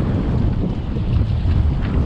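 Strong wind buffeting the microphone on an open boat: a loud, gusting low rumble.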